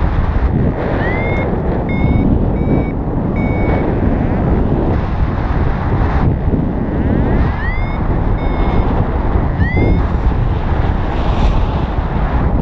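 Paragliding variometer giving its climb tone: short, high, repeated beeps, each run opening with an upward chirp and coming in two runs, signalling rising air. Heavy wind rushes over the microphone throughout.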